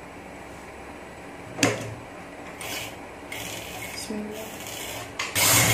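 Cotton fabric rustling in short bursts as it is smoothed and shifted by hand at a sewing machine, over a steady low hum. A sharp knock comes about one and a half seconds in.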